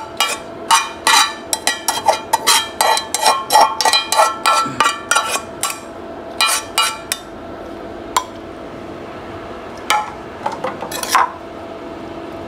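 Metal spatula scraping and clanking against a metal frying pan as stir-fried vegetables are scraped out onto a plate. There are rapid scrapes and clanks for about the first five seconds, then a few scattered clinks.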